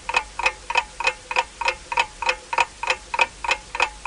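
Ticking clock sound effect: a quick, even tick-tock of about four to five ticks a second, marking time passing.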